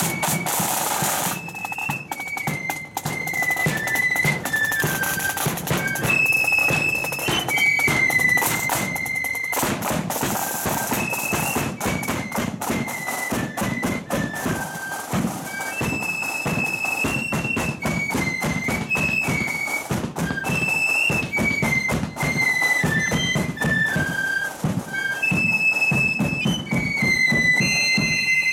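Marching flute band playing a tune, the flutes carrying a high melody over the steady beat of the band's drums.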